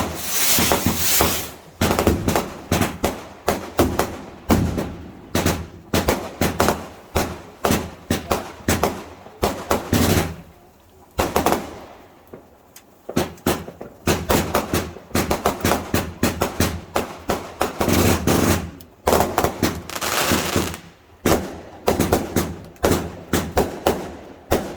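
Fireworks going off in a long run of rapid sharp cracks, several a second, with a short lull about eleven seconds in before the cracking resumes.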